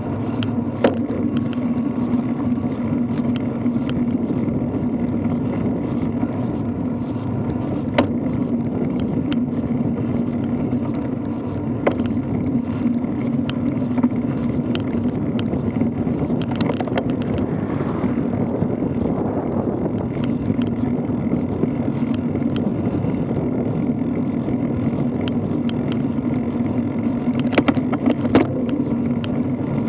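Steady rush of wind on a moving microphone and road-bike tyres rolling on asphalt at riding speed, with a few sharp knocks scattered through.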